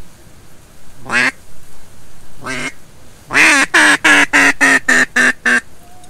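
Duck quacking, loud and close: two single quacks, then a quick run of about eight quacks in a row.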